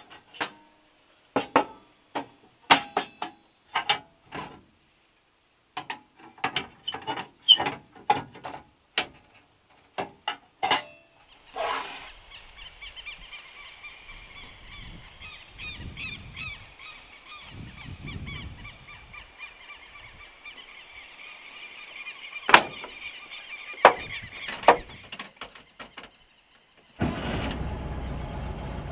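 Sharp metallic clicks and clanks as a gas cartridge is fitted into a portable butane camping stove, for about the first ten seconds. Then a steady outdoor hum with a high whine in it and a few sharp knocks. Near the end, heavy rain starts drumming on a metal van roof.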